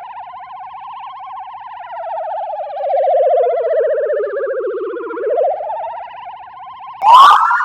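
Police car siren sound effect, altered for a meme variation: a fast-wobbling wail that slides slowly down in pitch, then climbs back up about five seconds in. Near the end a short noisy burst cuts in and a new, higher siren wail starts.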